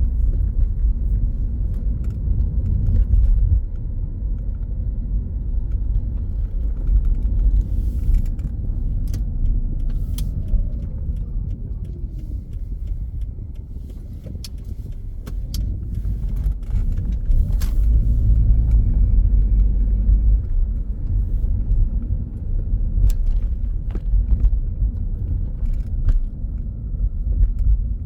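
Steady low rumble with scattered sharp clicks and knocks; a faint tone falls in pitch near the middle and then rises again.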